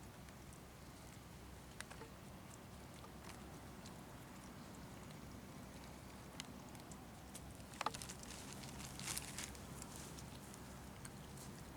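Monkey eating: faint scattered clicks and crackles of food being handled and chewed, with a sharper click about eight seconds in and a short crunchy rustle just after.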